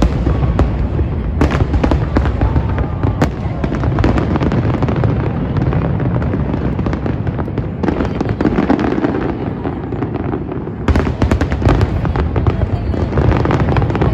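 Fireworks display: many aerial shells bursting one after another in a dense, continuous barrage of booms and bangs.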